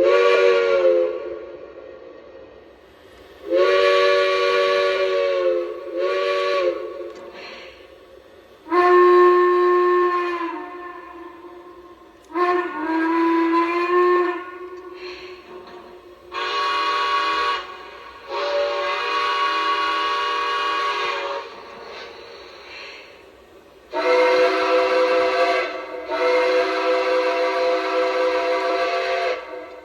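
Lionel Legacy Atlantic steam locomotive's sound system blowing its chime steam whistle in a series of about nine short and long blasts, the pitch sliding on some of them, over a soft steady hiss of steam.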